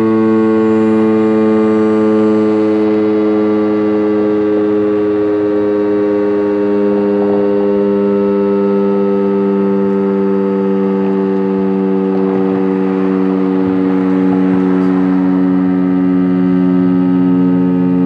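Federal Signal STH-10 dual-tone electromechanical outdoor warning siren sounding its noon blast, a loud steady chord held at a nearly constant pitch. The loudness swells and dips slightly as the siren rotates.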